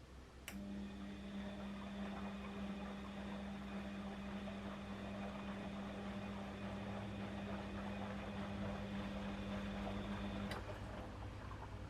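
Washing machine humming steadily during its cycle. It switches on with a click about half a second in and cuts off with a click about ten seconds later.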